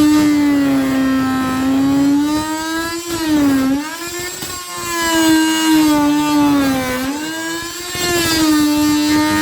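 Electric power tool's motor running at high speed with a steady whine, its pitch sagging twice when it is loaded by cutting into the wood and then picking back up.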